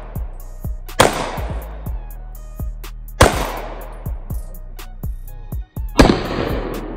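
Three 9mm pistol shots about two seconds apart, each ringing out in a long echo, fired with streak visual ammunition. Background music with a steady beat plays underneath.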